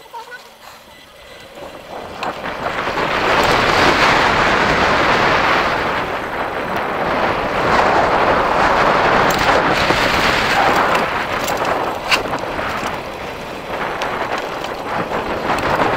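Wind rushing over an action camera's microphone on a moving bicycle, rising about two seconds in as the bike gathers speed, then staying loud and steady, with tyre noise from the tarmac path underneath. One sharp click about three-quarters through.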